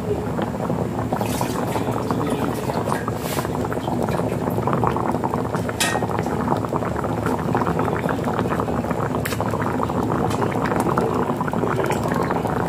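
Jackfruit stewing in coconut milk at a hard boil in a nonstick pot: a dense, steady bubbling and popping, with a few sharper clicks now and then.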